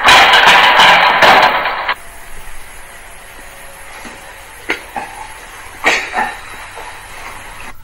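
Loud clattering rattle for about two seconds that stops abruptly, followed by a quiet stretch with a few short, soft knocks.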